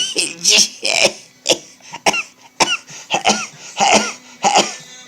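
A man sneezing over and over in rapid succession: a string of short, sharp sneezes, roughly one every half second.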